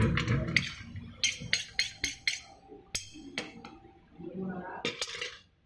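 Metal spoon stirring a bowl of chopped chayote filling, clinking against the bowl in a quick, irregular run of sharp clicks, then a last couple of knocks near the end as the spoon is set down.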